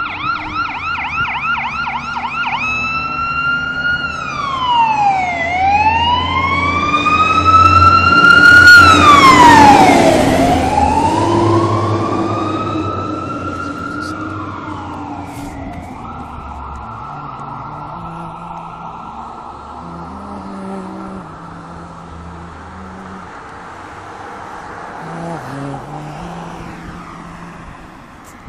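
Emergency vehicle siren approaching and passing by: a fast yelp switches to a slow rising-and-falling wail about three seconds in. It is loudest around eight to ten seconds in, drops in pitch as it passes, and fades away within a few seconds, leaving steady street traffic noise.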